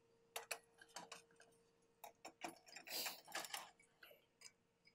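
Faint clicks and handling noises from a link belt being fitted hand tight around a conveyor drive pulley: a few scattered clicks, then a denser run of them about three seconds in.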